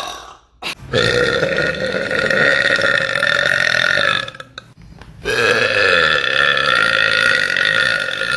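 Two long, drawn-out deliberate burps, each held at a fairly steady pitch for several seconds, the second starting about five seconds in and still going at the end.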